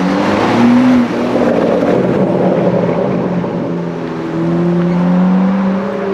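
A sports car's engine accelerating, its pitch rising. The sound drops off sharply about a second in, then climbs again.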